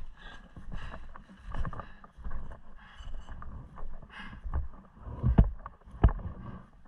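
Footsteps through grass and low brush: boots swishing and rustling through undergrowth at a steady walking pace, about one step every three-quarters of a second, with two heavier thumping steps near the end.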